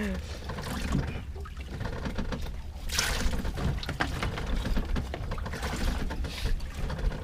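Seawater sloshing and splashing as a freshly caught fish is dragged through the water, with a sharper splash about three seconds in and a steady low rumble underneath.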